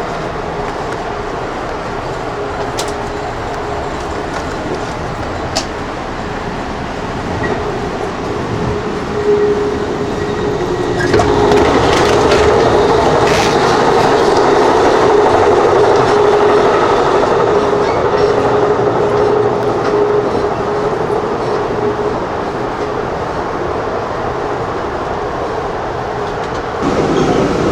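Passenger train running, heard from inside the carriage: a steady rumble of wheels on track with a steady hum and a few clicks, growing louder about eleven seconds in.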